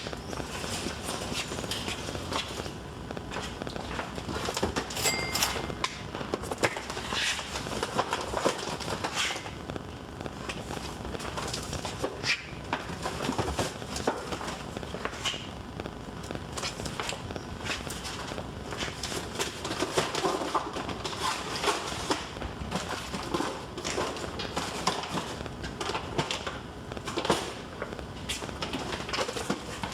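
Boxed consumer firework cakes being pulled off the shelves and loaded into a metal shopping cart: irregular cardboard knocks and thuds and the cart's rattles.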